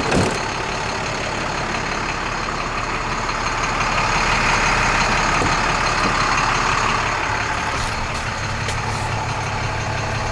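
International DT466 inline-six diesel engine idling steadily, with a single thump right at the start.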